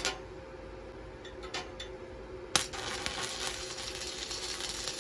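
Stick (SMAW) welding with a 6013 electrode on an inverter welder: a few faint clicks, then about halfway in the arc strikes with a sharp crack and runs on with steady crackling and sizzling.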